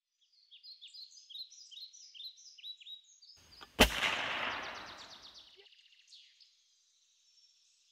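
Small birds chirping, then a single sharp report of a .357-calibre AirForce Texan big-bore air rifle about four seconds in, with a fading echo.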